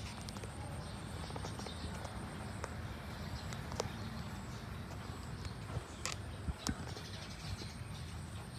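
Outdoor background with a steady low rumble and a thin, steady high-pitched tone, broken by a few short sharp clicks, most of them in the second half.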